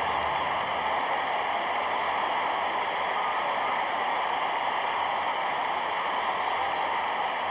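Steady, even hiss of noise, unchanging throughout, with no speech or music.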